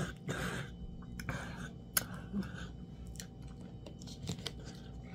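A person chewing a mouthful of fufu, quiet mouth sounds with scattered short soft clicks.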